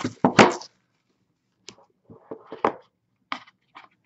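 A cardboard trading-card box being handled on a table. A couple of knocks come right at the start, then scattered light taps and scrapes as its lid is worked off.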